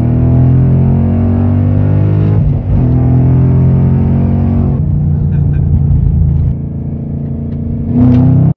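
2011 Mustang GT's 5.0-litre V8 engine running at a high idle just after a cold start, the revs sliding down and settling, dropping lower and quieter past the middle, then rising briefly near the end.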